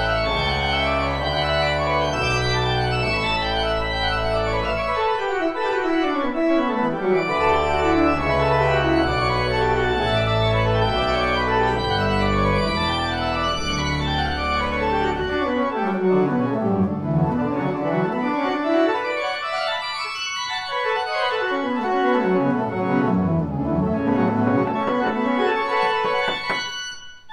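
Pipe organ playing a piece: full held chords over low pedal notes, broken several times by quick runs of notes sweeping down and back up. The music breaks off sharply near the end.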